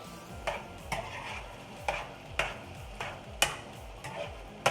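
A utensil stirring a rice, sausage and vegetable stir-fry in a pan, knocking against the pan in several sharp, uneven clicks.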